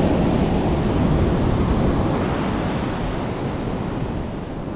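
Ocean surf breaking and washing up a sand beach, slowly easing off, with wind rumbling on the microphone.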